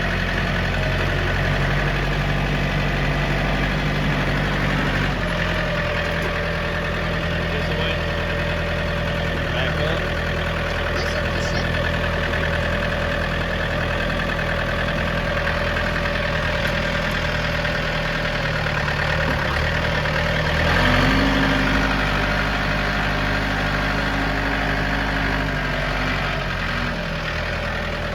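Engine running steadily, its note shifting about five seconds in, then rising and getting louder around twenty-one seconds in before settling back near the end.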